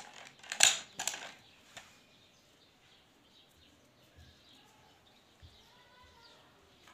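Two sharp metal clacks about half a second apart, then a smaller click: a Chinese B2 break-barrel air rifle being handled and shut at the breech after its breech seal was replaced.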